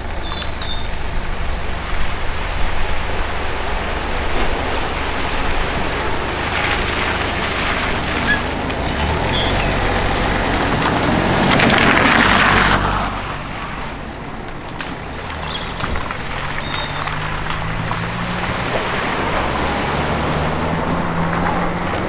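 Cars driving slowly through a shallow flooded ford, with engines running and tyres swishing through the water. The loudest swish comes about twelve seconds in as a car passes close by. Near the end an engine pulls away, rising in pitch.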